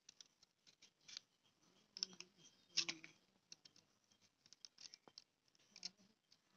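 Faint, scattered clicks and scrapes of a utility knife blade cutting and paring a soft piece of banana stem, in short uneven strokes.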